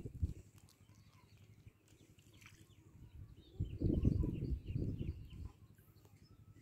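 Wind buffeting the microphone: a gust near the start and a longer one from about three and a half to five and a half seconds in. Small birds chirp faintly in the background.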